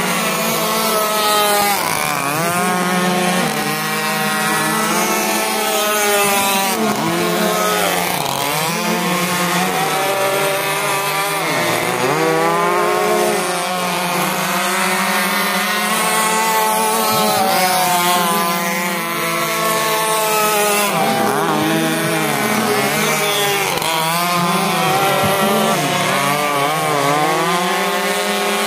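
Several RC racing boats running flat out on the water, the whine of their motors overlapping and repeatedly rising and falling in pitch as the boats pass by.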